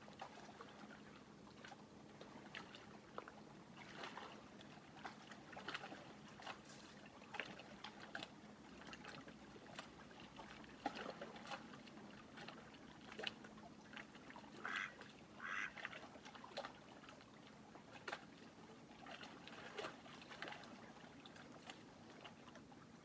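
Ducks calling faintly in short, irregular quacks, with a louder pair about two-thirds of the way in, over a faint steady low hum.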